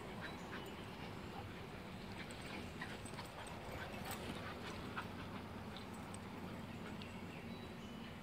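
A group of puppies playing, heard as scattered short clicks and small squeaks over a steady low hum.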